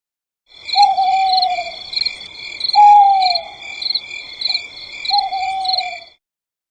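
An animal giving three long calls, each about a second long and dropping slightly in pitch, a couple of seconds apart. Under them runs a steady, high, rapidly pulsing chorus, like night insects.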